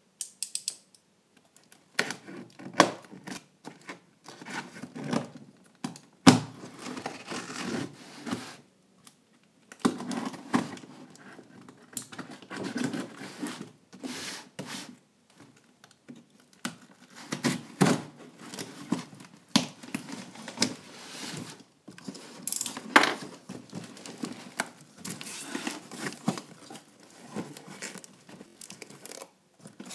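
A model aircraft's packaging being opened and handled by hand: irregular rustling, crinkling and tearing of box and wrapping, with scattered taps and knocks, after a near-silent first couple of seconds.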